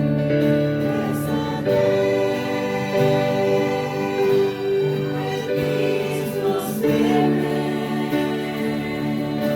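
Slow devotional hymn music: a choir singing held chords with instrumental accompaniment, the chords changing every second or two.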